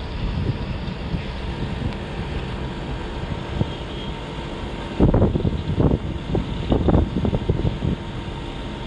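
Wind on the microphone, a steady low rumble that turns into stronger, uneven gusts buffeting it from about halfway through.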